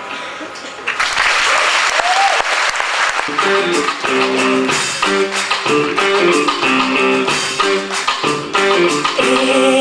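Audience applauding and cheering from about a second in. About three seconds in, the live band starts a repeating guitar riff over percussion hits.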